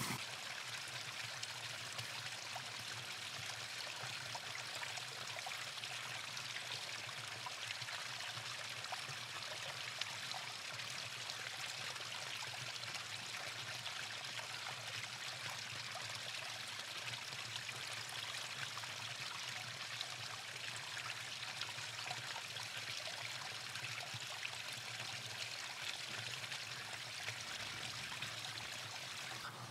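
Small running stream of clear spring water trickling and flowing steadily.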